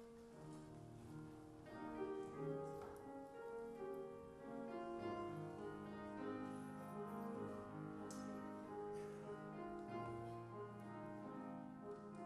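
Slow instrumental offertory music played on a keyboard: held chords and a melody, with no singing.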